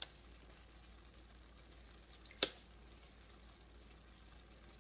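Faint, steady sizzle of ground chicken simmering in sauce in a frying pan, with one sharp click about two and a half seconds in.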